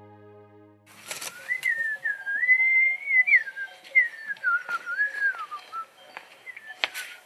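A man whistling a slow, wandering tune, the pitch gliding up and down, with a few sharp knocks and footfalls among it. Soft background music fades out in the first second.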